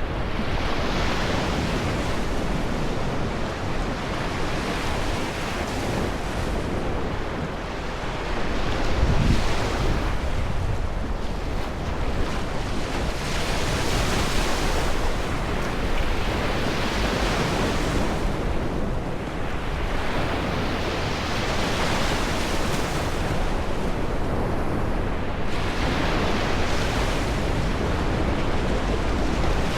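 Sea waves breaking and washing in, a fresh swell of surf every few seconds, with a low rumble of wind on the microphone underneath.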